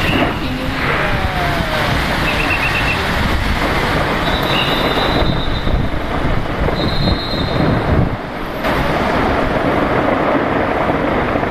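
Large fireworks display heard from a distance: a continuous, dense rumble of overlapping bangs, with a brief lull about eight seconds in.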